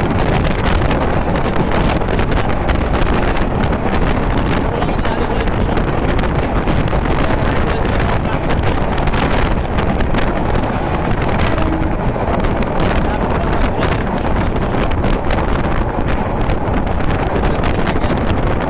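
Wind buffeting the microphone at the open door of a moving train, a steady loud rush with frequent crackles, over the running noise of the train on the rails.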